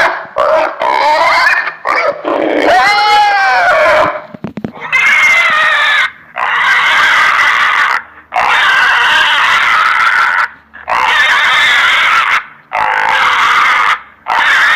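Pig calls: a few short grunts and one squeal that rises and falls in pitch, then a run of about six long, loud squeals, each lasting a second and a half to two seconds with brief pauses between.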